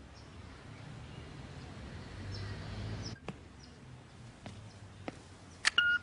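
Quiet outdoor ambience with a few faint bird chirps. Then a few sharp clicks of buttons pressed on a telephone answering machine, and a short electronic beep from the machine near the end.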